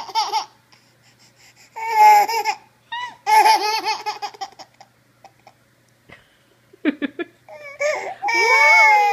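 A baby laughs in three choppy bursts. After a short lull it gives a few sharp cries and then breaks into a long cry near the end.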